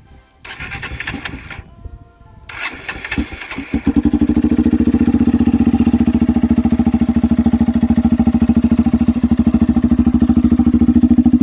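Honda Titan single-cylinder four-stroke motorcycle engine cranked on its first start through a homemade PVC-pipe exhaust tip. It catches about four seconds in and then idles with a steady, even pulsing beat.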